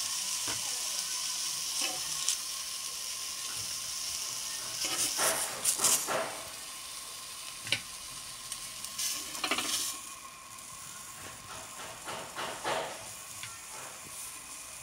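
Zucchini slices sizzling on a hot ribbed grill pan, with a few short scrapes against the pan as the slices are lifted off. The sizzle eases a little after about ten seconds.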